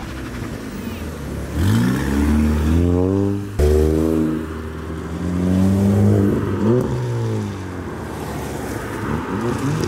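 A car accelerating away with its engine revving up in pitch. The engine sound cuts briefly about three and a half seconds in, then carries on and rises again near seven seconds.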